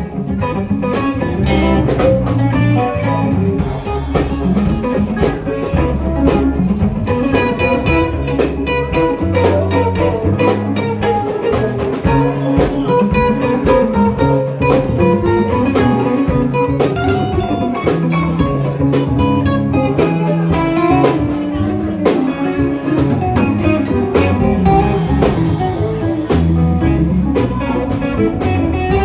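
Live rock band playing an instrumental jam: electric guitar lines over bass and drum kit, without vocals.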